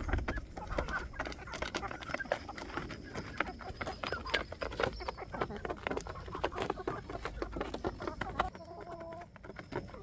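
A flock of chickens clucking softly while pecking cornmeal off a round flat pan, their beaks tapping the pan in a quick, irregular patter of clicks.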